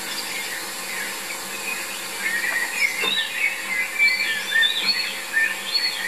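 Small birds singing in the background, a busy mix of short chirps and warbled phrases, thin at first and fuller and louder from about two seconds in.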